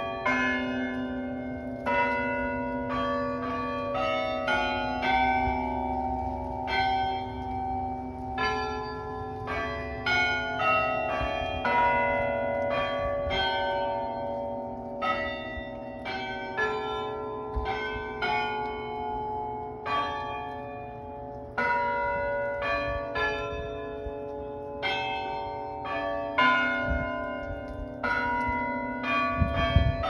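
Tower bells in a chime playing a tune, struck one note at a time about once or twice a second, at changing pitches, each bell ringing on and overlapping the next.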